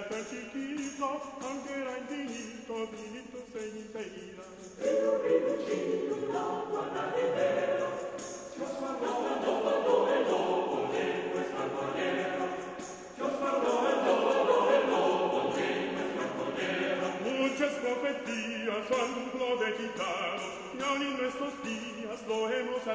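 Background music of choir-like voices singing. It swells louder about five seconds in and again about halfway through.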